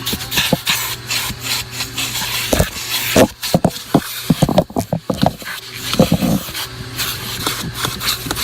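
Vacuum cleaner running with a steady hum while its nozzle is rubbed and scraped over car carpet and upholstery in quick, irregular strokes.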